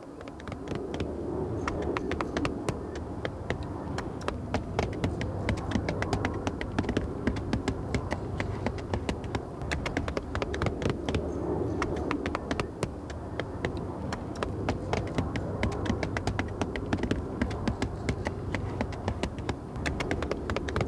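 Hammers tapping in hinoki cypress bark roofing: quick, irregular taps, several a second, over a low steady hum.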